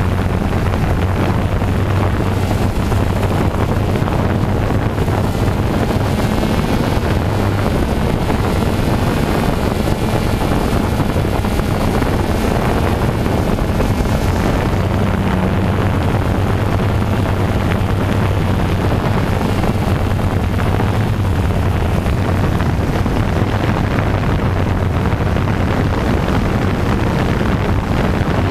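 Steady low hum and rumble of a small vehicle's motor, picked up by the camera riding on it as it drives through a shallow creek and onto grass.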